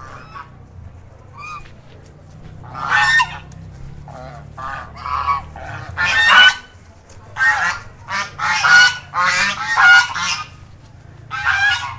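White domestic geese honking: spaced honks at first, then a quick run of several honks close together, and one more near the end.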